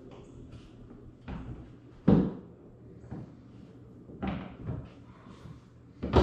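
Irregular knocks and clunks of hand tools working the plastic rivets and screws under a car's rear bumper, about five in all, the loudest about two seconds in.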